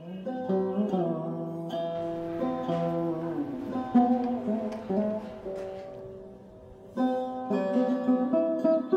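Background music: a sarod playing a Bengali folk tune, plucked notes with sliding pitches. The phrase fades out and a new, louder one begins about seven seconds in.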